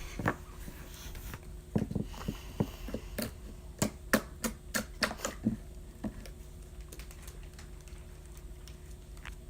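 Hands kneading sticky, freshly mixed glue-and-borax slime, giving a run of irregular wet clicks and pops for a few seconds, then quieter.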